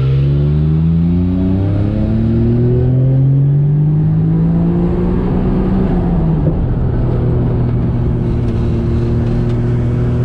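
Daihatsu Mira Turbo's 660 cc turbocharged three-cylinder engine heard from inside the cabin as the car accelerates. The engine note rises, drops as it shifts up, rises again and drops at a second upshift about six seconds in, then settles into a steady cruise.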